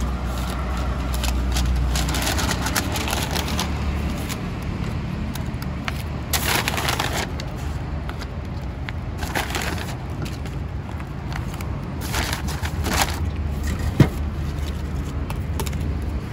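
Street ambience: a steady low hum of road traffic, with several short bursts of crackling, crunching noise and one sharp click near the end.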